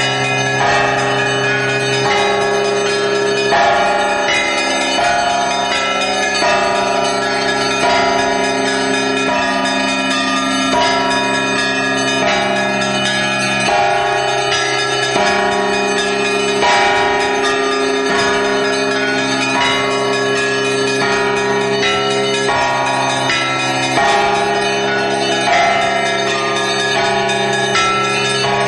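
Russian Orthodox belfry bells rung by a single ringer pulling the clapper ropes: a loud, continuous peal of many bells of different pitches struck in quick succession, ringing over one another, heard close up among the bells.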